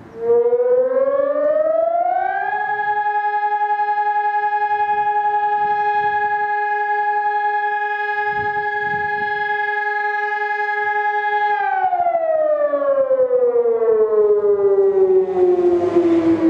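Civil-defense-style siren wail in an emergency alert (EAS) alarm: the pitch winds up for about two and a half seconds, holds steady, then starts winding down about eleven seconds in and is still falling at the end.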